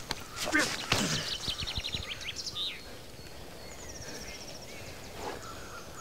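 Scuffle of two men grappling, with thuds and grunts in the first second or so as one is brought down onto pavement. After that the background is outdoor ambience, with a small bird's rapid high trill repeating several times.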